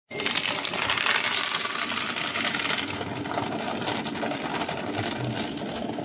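Cross-cut desktop paper shredder (5×40 mm cut) shredding a sheet of A4 paper fed in by hand. The cutting noise starts abruptly, is loudest over the first couple of seconds, then carries on a little quieter.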